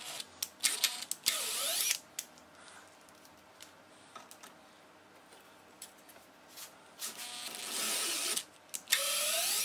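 Electric drill with a twist bit boring into a metal trunk lid stay clamped in a vise. The motor runs twice, briefly about a second in and again for about two seconds near the end, its whine rising in pitch each time.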